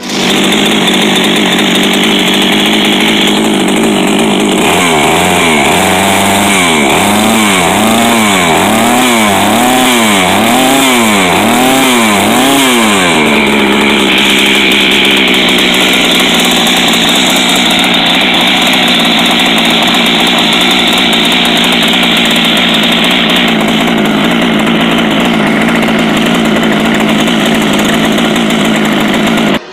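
Poulan 5400 two-stroke chainsaw running loudly. For several seconds its engine speed rises and falls about once a second, then it settles to a steady run.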